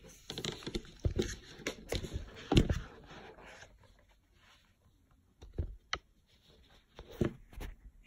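Rustling, scraping and knocks of an iPad Air's white cardboard box being handled as its lid is lifted off. Busy for the first few seconds, then a few scattered knocks.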